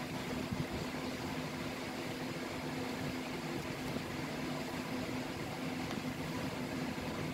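Steady low machine hum with an even hiss behind it.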